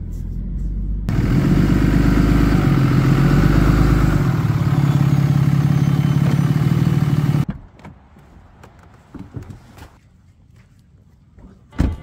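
A motor vehicle running, much louder from about a second in until it cuts off abruptly a little past halfway. After that it is quieter with a few clicks, and there is a sharp thump near the end.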